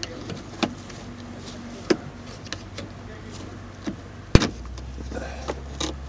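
Scattered sharp plastic clicks and snaps as the plastic trim clips are pried and the roof-rail trim piece above a Saturn SC's seatbelt is worked loose, the loudest snap about four seconds in. A low steady hum runs underneath.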